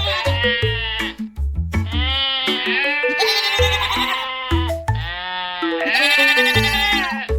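Goats bleating: several long, wavering bleats in a row, over soft instrumental music with a steady bass.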